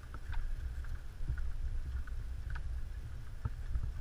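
Steady low rumble of wind and handling noise on a camera held near the ground, with scattered faint ticks of corgis' claws on the pavement.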